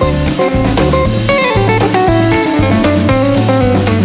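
Background music: a guitar-led blues-rock instrumental with drums and a bass line.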